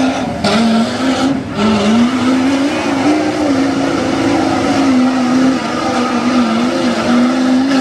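Lifted Ford Super Duty pickup's engine held at high revs while it spins doughnuts in deep mud, tyres churning and flinging mud. The engine note wavers up and down, dropping briefly about half a second and again about a second and a half in.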